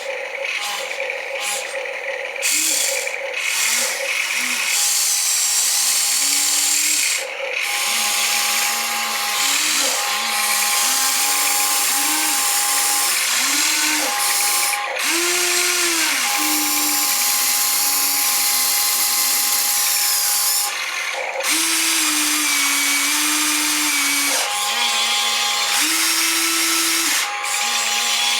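Small geared electric motors, likely those of a radio-controlled model excavator and dump truck, whining in short runs that start and stop every second or two, the pitch stepping up and down as they work, over a constant hiss.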